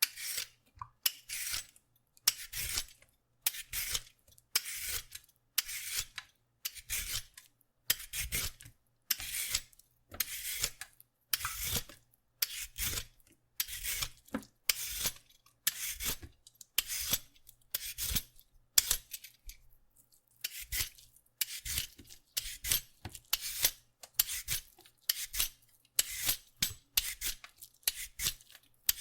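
A vegetable peeler scraping along a carrot in a steady series of short strokes, a little under two a second, each a brief rasp with short gaps between.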